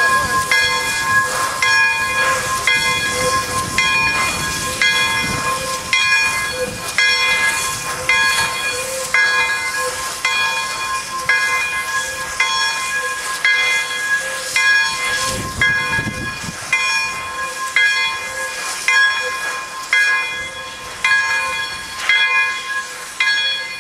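Bell of the steam locomotive Pere Marquette 1225, a 2-8-4 Berkshire, ringing in steady, evenly spaced strokes as the engine moves, over the hiss of escaping steam. About two-thirds of the way in, a brief low rush of steam stands out.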